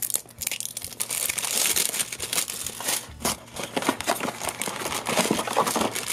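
Toy packaging opened by hand: plastic wrap and a thin cardboard box crinkling and tearing as the flaps are pulled open, with a short pause about three seconds in, then a black foil bag crinkling near the end.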